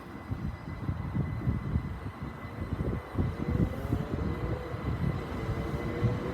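A pair of Class 377 Electrostar electric multiple units pulling out of the station with a low rumble of wheels on rail. About halfway in, a faint traction-motor whine rises slowly in pitch as the train accelerates.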